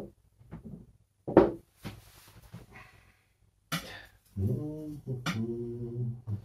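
A few short, sharp sounds in the first second and a half, then a man's wordless voice holding steady notes that shift in pitch for about two seconds near the end.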